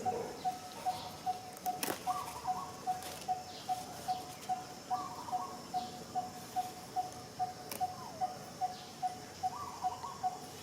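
A steady, evenly paced series of short, identical notes, about two and a half a second, like a bird calling over and over. Three brief higher calls come about two, five and nine and a half seconds in.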